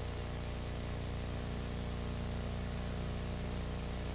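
Steady hiss with a low electrical hum underneath; nothing else sounds.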